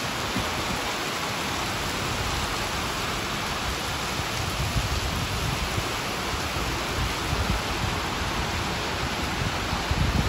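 Steady rain falling on wet paving, an even hiss.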